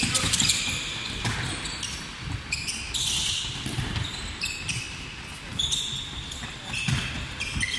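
Handball players' athletic shoes thudding and squeaking on a wooden sports-hall floor as they sprint and cut sharply between cones, with a handball bouncing.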